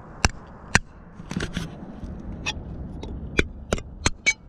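Sharp, irregular clicks and ticks from fishing tackle being handled, about nine of them spread unevenly, over a faint steady low background noise.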